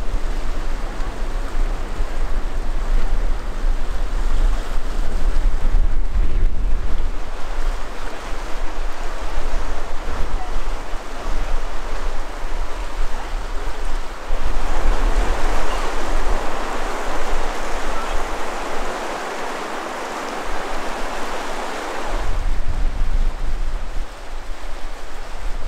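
Swollen Firehole River rushing in flood, with wind buffeting the microphone as a low rumble. For several seconds past the middle the wind rumble drops away and the rush of the water is brighter and louder, before the wind returns near the end.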